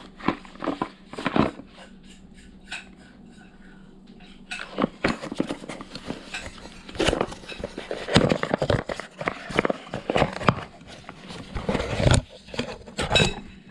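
Small hard parts being handled and set down, clinking and clattering: a few clicks at first, then a dense, irregular clatter from about four and a half seconds in.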